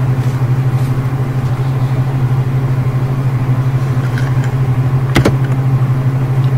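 Steady low hum with a few faint overtones, with one sharp click about five seconds in.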